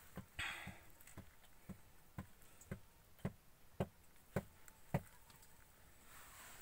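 Faint, evenly spaced knocks, about two a second, that stop about five seconds in.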